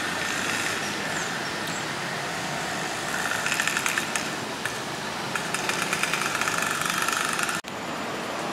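An engine running at idle with a fast, even rattle that grows stronger and fades twice, over a steady hum; the sound drops out for an instant near the end.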